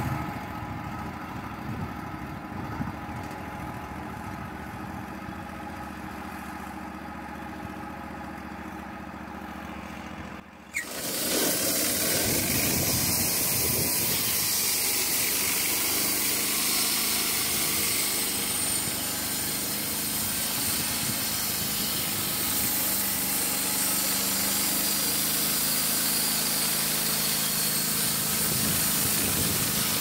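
Wood-Mizer LT35 portable band sawmill's engine running steadily at a lower level, then, from about ten seconds in, running louder and steady at working speed with a strong hiss as the band blade saws along the log.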